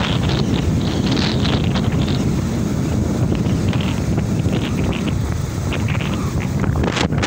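Wind buffeting the microphone of a moving motorcycle, steady and loud, over the low running of the motorcycle.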